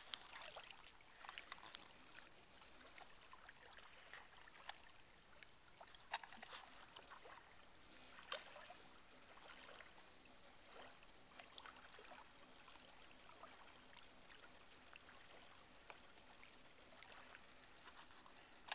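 Near silence: a faint steady high-pitched whine with a few scattered faint clicks.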